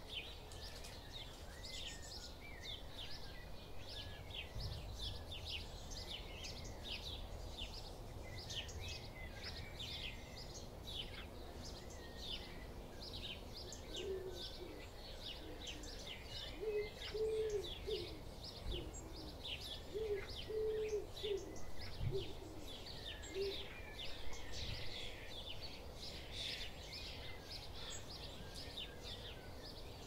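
Garden songbirds chirping and singing in a dense chorus of short, high calls. From about halfway through, a pigeon joins in for around ten seconds, cooing in low, repeated phrases.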